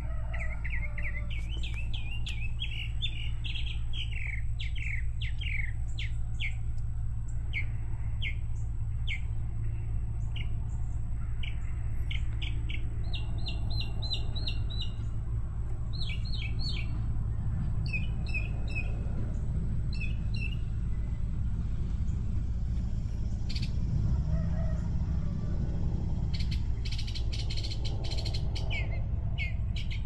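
Small birds chirping: many short, high, falling chirps, with several quick runs of repeated notes in the middle and again near the end. A steady low hum runs underneath.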